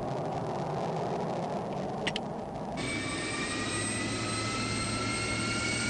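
F-16C engine start driven by its jet fuel starter: a steady rushing noise with a brief click about two seconds in. From about three seconds on, a set of high whining tones rises slowly in pitch as the engine spools up toward idle.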